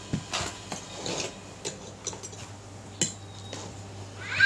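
Metal fork and spoon tapping and scraping on a plastic plate as a heap of instant fried noodles is stirred and picked up, with scattered light clicks. There is a louder short squeak near the end.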